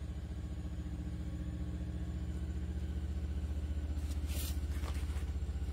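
A steady low motor hum with a fast, even pulse, and a brief rustle about four seconds in.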